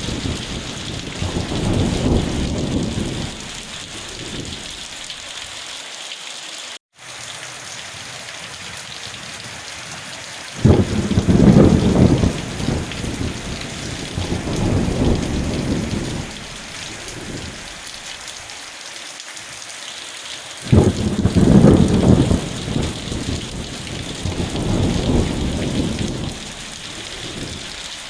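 Steady heavy rain with rolling thunder. A rumble is dying away at the start, then two peals break suddenly, about a third and two thirds of the way through, each rumbling for several seconds. The sound cuts out for an instant around seven seconds in.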